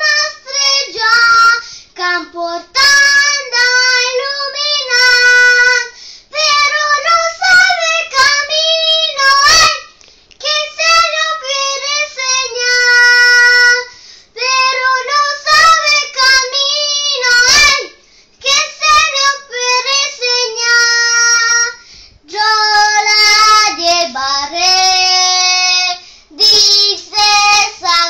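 A young girl singing a Christmas song in Spanish, unaccompanied, in short phrases with brief pauses for breath between them.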